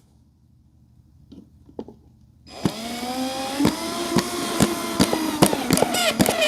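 Power drill driving a screw: the motor starts about two and a half seconds in with a rising whine that then holds steady, with regular clicks running through it. A couple of light knocks come before it.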